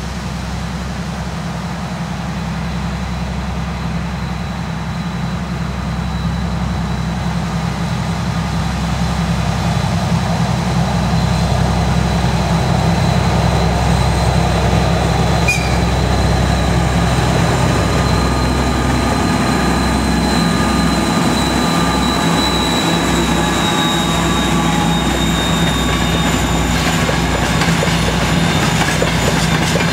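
2M62 twin-section diesel locomotive, its two-stroke V12 diesel engines working under load as it hauls a freight train past. The engine drone grows steadily louder as it approaches, with a high whine that drops slightly in pitch as it passes. Wheel clicks over the rail joints start near the end as the wagons follow.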